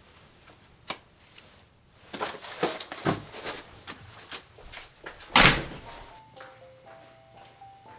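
A few knocks and steps, then a front door shut hard about five and a half seconds in, the loudest sound; right after it a simple melody of a few held notes starts.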